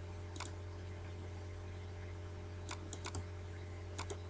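Faint clicks of a computer mouse: one single click, a quick cluster of clicks about three seconds in, and a close double click near the end. A steady low hum runs underneath.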